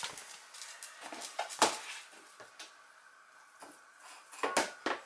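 Small dog on a tile floor, with a few sharp clicks and taps: the loudest about a second and a half in, and a quick cluster near the end.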